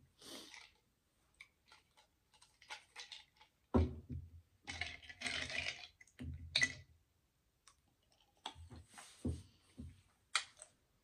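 Clinks and rattles of ice cubes in a glass mug as fingers fish among them, with scattered short clicks and mouth sounds close to the microphone; the busiest rattling comes about four to six seconds in.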